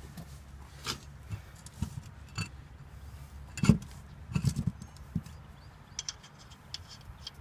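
Metal lug nuts clinking and scraping as they are handled and threaded by hand onto a car wheel's studs, in scattered light clicks with a louder knock a little past the middle.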